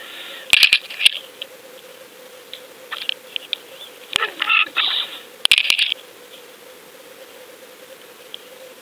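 A few sharp clicks and knocks with short bursts of crackling, heard underwater over a steady faint hum; the clicks cluster about half a second to a second in, around four seconds in and near five and a half seconds.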